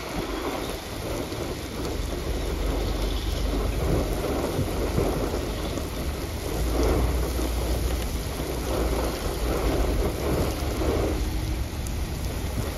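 Rain falling in a thunderstorm, with a low rumble throughout that grows stronger about halfway through.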